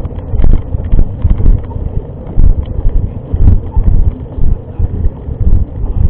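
Wind buffeting the camera microphone in a heavy low rumble, with irregular knocks and rattles from a mountain bike riding over a rough trail.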